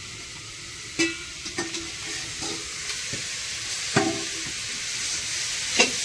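A dal masher knocking and scraping inside a steel pot as cooked dal is mashed, with a handful of sharp clinks, the loudest about one and four seconds in, over a steady hiss.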